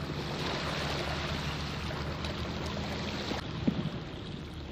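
Waterside ambience: a steady low boat-engine drone under a rushing wash of noise that stops suddenly about three and a half seconds in, followed by a couple of faint clicks.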